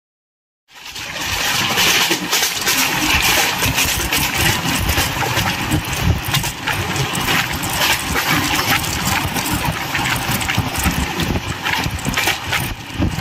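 Running noise of a passenger train heard from its open door: wheels rattling on the rails with wind rushing past, starting suddenly about a second in and staying loud and dense throughout.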